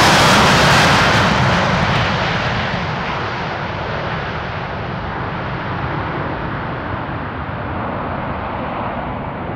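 Airbus A330's twin jet engines at takeoff thrust as the airliner lifts off and climbs away: loud at first, then fading over the first few seconds as the high-pitched part of the noise drops away, leaving a steady distant rumble.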